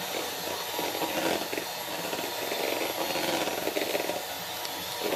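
Electric hand mixer running steadily, its beaters whipping egg whites into foam in a plastic bowl.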